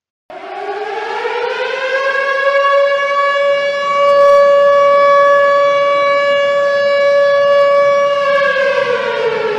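Warning siren sounding one long wail: it rises in pitch over the first couple of seconds, holds a steady tone, then starts to fall near the end, an alarm signalling danger.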